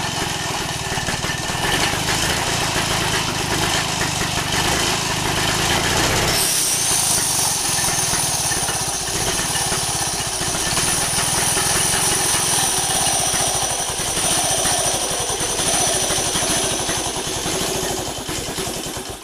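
Fichtel & Sachs 250 cc single-cylinder two-stroke engine running on a test bench, its finned fan flywheel spinning. It is running on sprayed-in brake cleaner and oil spray with the carburettor not yet overhauled. A high whine joins about six seconds in, and the engine cuts out at the very end.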